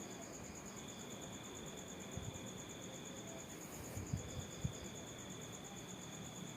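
Insects trilling steadily in two high, pulsing tones, the lower one stopping and starting. A few soft low thumps come about two seconds in and again around four seconds.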